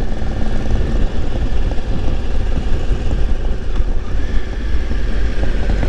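Triumph Tiger 955i's three-cylinder engine running as the motorcycle rides along, under a steady low rumble of wind noise on the bike-mounted camera's microphone.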